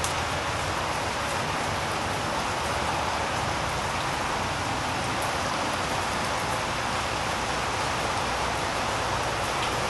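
Steady rain falling on concrete paving: a dense, even hiss of drops with a few sharper individual drop ticks.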